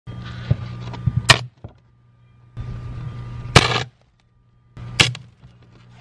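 Bolt cutters shorting across live wiring on a simulated 70-volt, 100-amp supply: three short bursts of steady electrical buzzing, each with a loud sharp crack of arcing.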